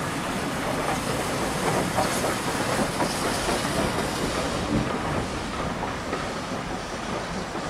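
A steam train pulling out: its carriages rumble and clatter over the rail joints while steam from the locomotive hisses.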